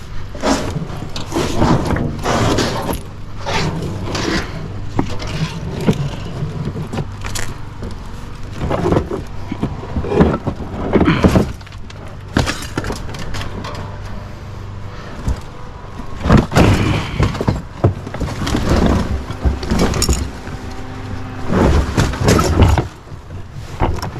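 Repeated crashing and breaking as a shed is torn down, with many irregular impacts of debris coming apart and falling.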